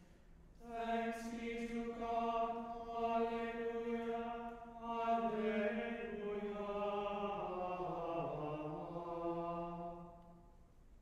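Small group of men chanting plainchant in unison, a single melodic line sung on long held notes that drops in pitch near the end and dies away about ten seconds in.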